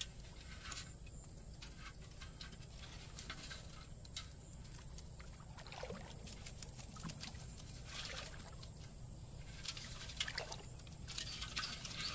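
Wet mesh net trap being shaken out into a metal pot of water: water trickling and small scattered splashes as the catch drops in.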